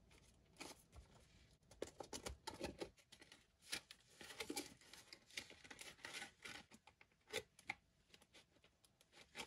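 Faint rustling and crackling of a stack of paper banknotes being handled and slid into a cash envelope, in scattered short crinkles.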